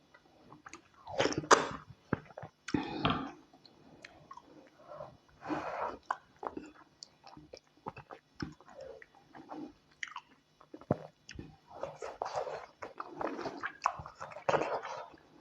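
Close-miked chewing and biting, in uneven bursts with small clicks: a person eating tilapia pepper soup with white starch.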